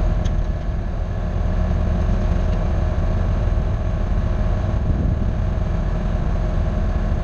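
Diesel engine of a piece of heavy clearing equipment running steadily with a deep, even drone.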